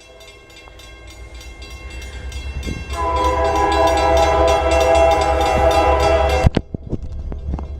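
Diesel freight locomotives approaching with a low engine rumble that grows louder, then a locomotive air horn chord sounding about three seconds in, held for about three and a half seconds and cutting off sharply.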